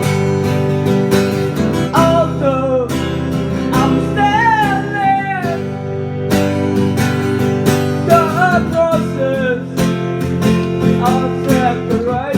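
Acoustic guitar strummed steadily while a solo voice sings wavering phrases over it, a singer-songwriter's song.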